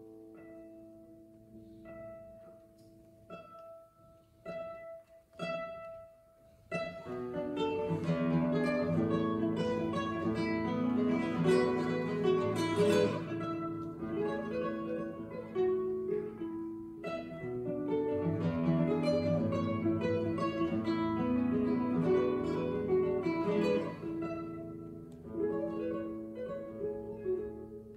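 A 1924 Santos Hernández classical guitar played solo, fingerstyle. A few single notes ring out with pauses between them, then about seven seconds in it moves into a fuller, louder stream of notes and chords that thins out again near the end.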